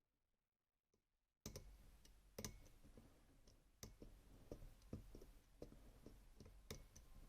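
Faint, irregular clicking of a disc detainer pick working the rotating discs inside a Rosengrens 32CK2 lock. The clicks come every half second to a second, starting after about a second and a half of near silence.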